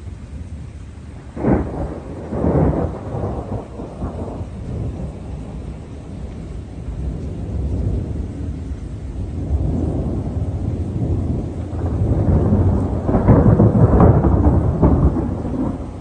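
Thunder: a sharp crack about a second and a half in with a second one right after, rumbling on, then a longer rolling peal that builds and is loudest near the end.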